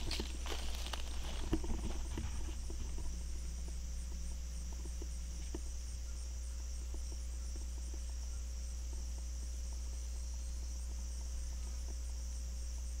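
A steady high-pitched chorus of field insects chirping in the grass, with footsteps and rustling through the grass in the first two seconds.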